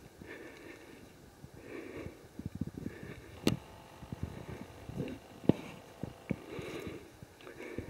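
A hiker's heavy breathing on a climb, a breath about every second, with footsteps and a few sharp knocks and scuffs.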